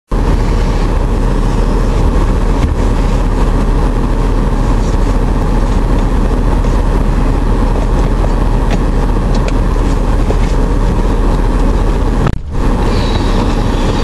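Truck engine idling, heard from inside the cab as a steady, loud hum with a low drone, briefly dropping out about twelve seconds in.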